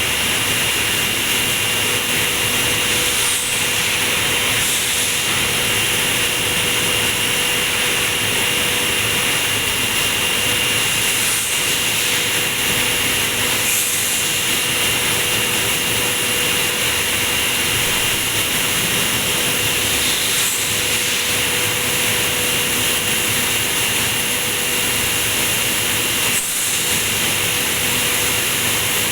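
Industrial stainless-steel bucket washing machine running, a loud steady rushing noise with a constant high whine and a lower hum.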